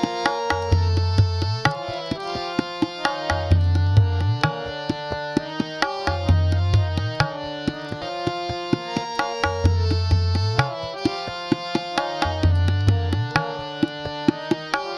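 Harmonium and tabla playing an instrumental passage: sustained harmonium notes over quick tabla strokes. The bayan's deep bass stroke comes back about every second and a half and bends upward in pitch as it fades.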